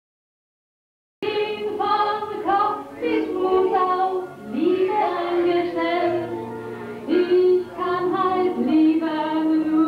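A high-pitched voice sings a song with held, wavering notes over steady musical accompaniment. The sound cuts out completely for the first second or so, then comes back abruptly.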